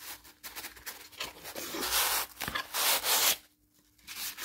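Polystyrene and plastic packaging being pulled apart and handled: a run of rubbing, scraping and rustling strokes, loudest about two and three seconds in.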